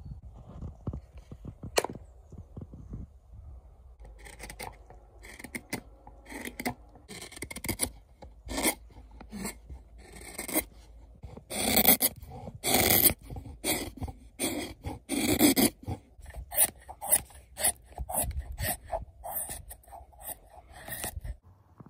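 Knives cutting a dry turned wooden bowl by hand: a hook knife and then a straight carving knife pare the wood in many short, irregular scraping strokes, loudest in the middle. A single sharp knock comes about two seconds in.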